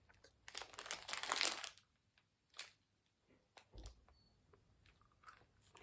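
A plastic sweet packet crinkling and rustling as it is handled and opened, with a burst of rustling about a second in, then a few faint clicks.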